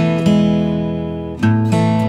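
Background music: sustained chords, with a change to a new chord about a second and a half in.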